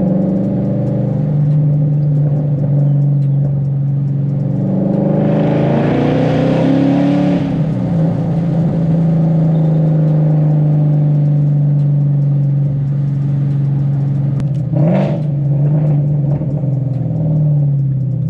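Ford Mustang 5.0 V8 with its exhaust heard from inside the cabin while driving. About five seconds in it pulls up in pitch under acceleration, then eases off and runs at a steady cruise. There is a brief sharp burst of revs near the end.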